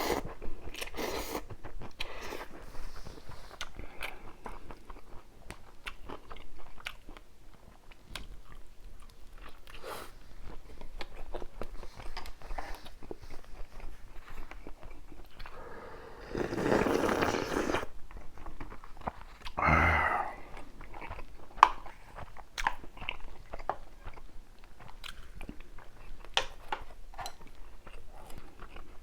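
Close-miked chewing of food, with many crisp crunches and clicks. There is a louder, noisier stretch about two-thirds of the way through, and a brief pitched sound just after it.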